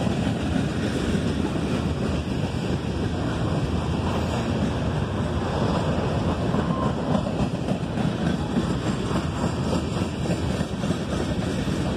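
Freight cars rolling past on the track: a steady rumble of steel wheels on the rails.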